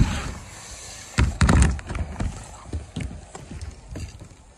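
Mountain bike hitting the ground off a dirt jump: a thud at the start, heavy impacts about a second in, then a run of smaller knocks and rattles that die away.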